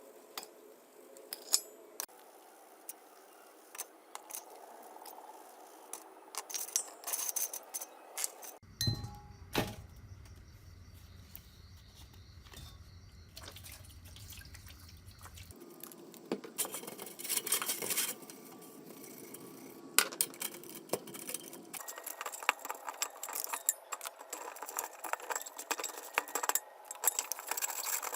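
Small metal parts and tools clinking and tapping as they are handled, in irregular clicks. A low steady hum runs for several seconds in the middle, then gives way to a higher hum that stops a little over 20 seconds in.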